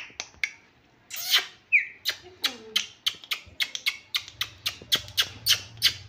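Pet parrot squawking: about a second in, a loud harsh call and a short falling call, then a fast run of short, sharp squawks several times a second. The parrot is agitated.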